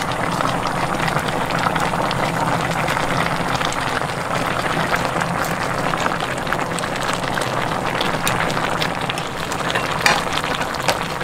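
Mackerel and radish braise simmering in a shallow pan, a steady hiss of small popping bubbles, its spicy sauce reduced to a little liquid. A sharper click about ten seconds in.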